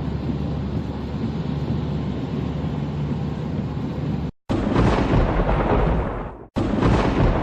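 Steady road and rain noise of a car driving on a motorway in the rain. About four seconds in it cuts abruptly to a louder, fuller rushing noise, which breaks off again briefly near the end.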